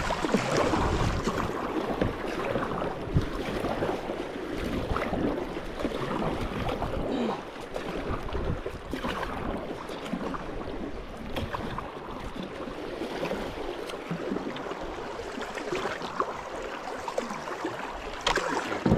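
Kayak paddle strokes splashing in fast creek water, with the current rushing along the hull as the kayak is paddled hard upstream through a shallow riffle; many irregular splashes and knocks.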